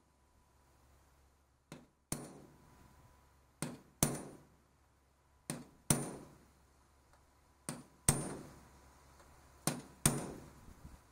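A hammer striking a center punch to drive ground-off rivets through a school bus's sheet-metal body panel. The blows come in five pairs about two seconds apart, a lighter tap then a harder blow, each with a short metallic ring.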